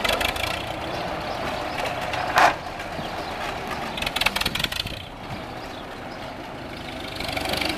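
1943 Farmall M's four-cylinder engine running at low speed as the tractor drives by, fading about five seconds in as it moves off and growing louder again near the end. A short, louder burst comes about two and a half seconds in.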